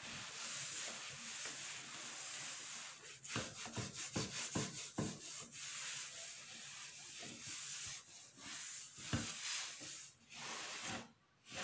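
Steady scraping and rubbing from kitchen work, with scattered knocks, dying away near the end.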